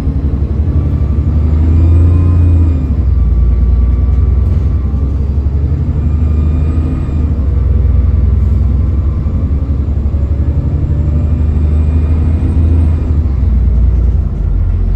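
ADL Enviro 400 (E40D) double-decker bus engine running under load with a loud low rumble, its turbocharger whining high above it. The whine rises and falls three times, peaking about two, seven and twelve seconds in as the bus picks up and eases off.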